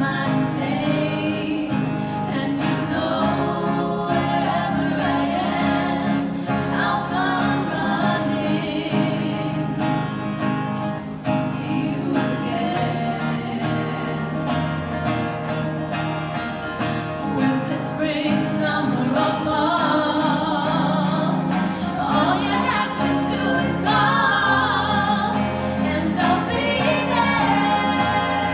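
Singing with acoustic guitar accompaniment: a slow song continuing, with sustained chords under held, sung melody lines.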